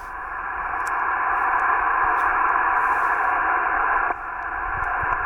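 Yaesu FT-891 shortwave transceiver's speaker hissing with band noise through its narrow SSB receive filter, with no station on the frequency. The hiss is steady, swells in at the start and drops a little about four seconds in.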